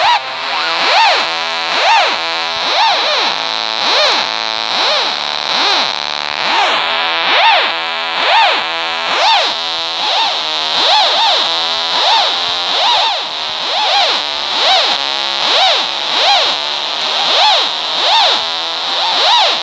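Synthesizer sound effect from a phone synth app: a noisy, distorted tone that sweeps up and down in pitch about once a second, over a steady hiss.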